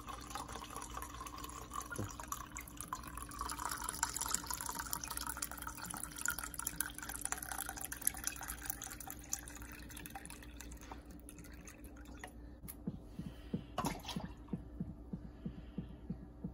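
Rum pouring in a thin, steady stream from a glass bottle into an empty metal can for about twelve seconds. Near the end, the can is tipped into a blender jar, with a few splashes and knocks.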